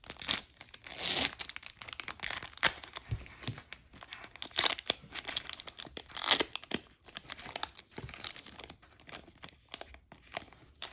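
Foil Pokémon booster pack wrapper being torn open and crinkled by hand, with irregular crackling rips throughout.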